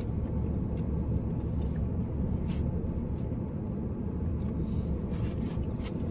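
Steady low rumble of a car idling, heard inside the cabin, with a few faint clicks of utensils.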